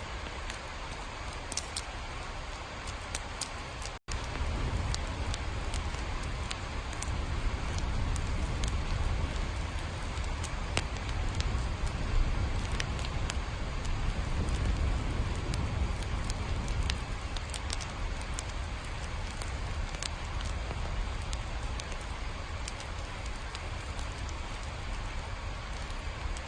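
Steady rain with scattered sharp drops ticking. The sound cuts out for an instant about four seconds in, then comes back with a heavier low rumble underneath.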